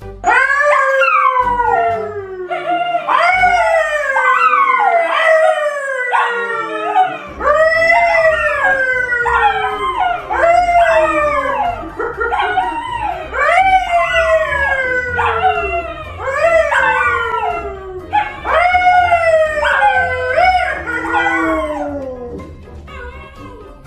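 An animal howling over and over, about one howl a second, each starting high and sliding down in pitch.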